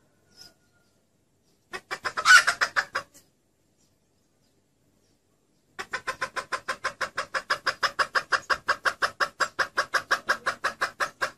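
Junglefowl hen calling: a short burst of rapid clucks with one loud squawk about two seconds in, then, after a pause, a long run of quick, even clucks, about seven a second. It is a hen's call used as a lure to draw in junglefowl cocks.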